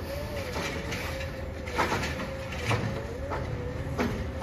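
Automated side-loader garbage truck running as it creeps up the street: a low engine rumble with a steady whine that wavers slightly in pitch. Four sharp metallic clanks come from about two seconds in.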